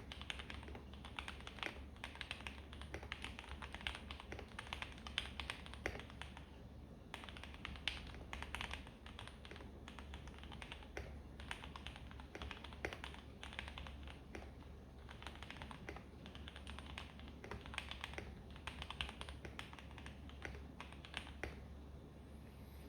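Typing on a Keychron K2 mechanical keyboard fitted with lubed Gateron Milky Yellow linear switches, foam and tape mods. The keystrokes come as rapid, irregular runs of clicks with short pauses, and stop near the end.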